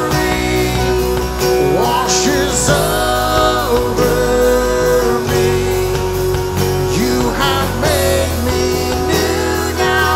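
Live worship band playing a slow rock worship song: electric and acoustic guitars, bass, keyboard and drums under singers holding long notes of the chorus.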